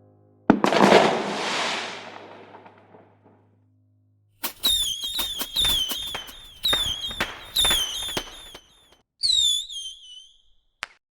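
Fireworks: a sharp bang about half a second in, followed by a long fading crackle and hiss, then a quick run of bangs, each with a short high whistle falling in pitch.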